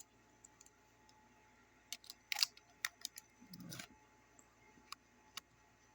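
Sharp metallic clicks and scrapes from a Carcano rifle's action as a stripper clip is pushed into place, about half a dozen clicks spread out, the loudest about two and a half seconds in. The clip latch is sticking, which the owner thinks may only be dirt and grime needing cleaning.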